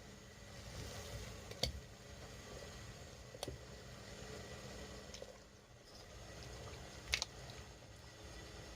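A low steady hum under faint noise, with three short sharp clicks a couple of seconds apart; the last one is the loudest.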